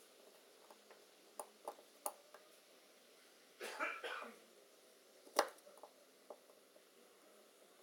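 Light metallic clicks and taps of small tools (tweezers, then a caliper) against a metal lens mount, with a short cough near the middle and one sharper click about a second after it.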